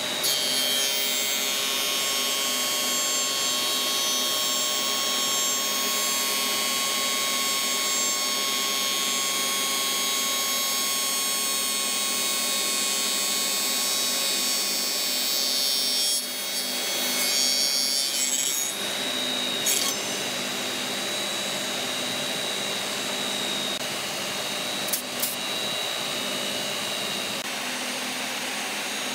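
Spindle moulder (shaper) running and cutting the edge of a wooden workpiece held on a template jig. There is a loud, steady high-pitched cutting noise over the motor for most of the time; it eases off past the middle, leaving the machine running with a few sharp knocks.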